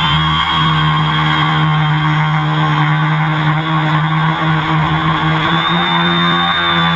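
Multirotor (tricopter) motors and propellers humming steadily at a near-constant pitch, with a thin high electric motor whine above the hum.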